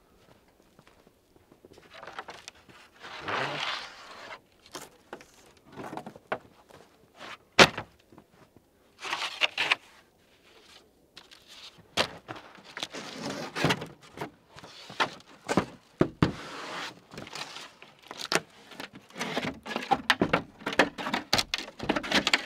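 Thin wooden slices being picked up and handled: irregular knocks and clacks of wood against wood, with bursts of rustling.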